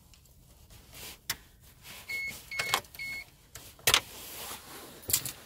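Three short, high electronic beeps in quick succession about two to three seconds in, with a few sharp clicks of controls being handled inside a car's cabin; the loudest click comes about four seconds in.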